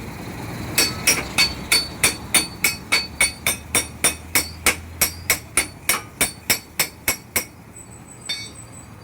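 Hammer striking metal in a steady run of about twenty quick, evenly spaced blows, roughly three a second, each with a ringing metallic edge. The blows stop a little after seven seconds in, and one lighter tap follows.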